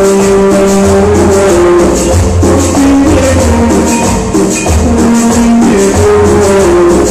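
Loud dance music from a sonidero DJ's mix, with a steady bass line, changing melody notes and quick, even percussion keeping the beat.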